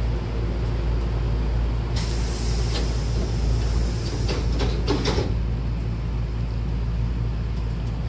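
Hankyu train's double sliding doors closing: a hiss of compressed air from the door engine for about three seconds, with several knocks as the door leaves slide shut and meet. Under it runs the steady low hum of the stopped train.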